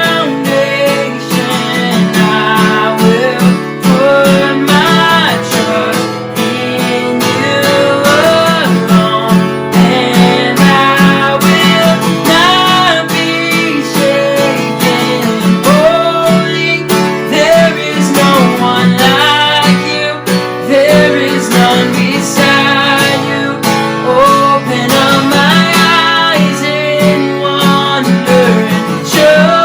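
Worship music led by a strummed acoustic guitar, with a melody line weaving over the steady strumming.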